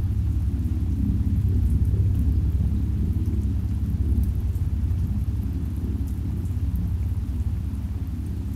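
Deep, low synth chord held steadily, with a faint crackle of falling rain over it.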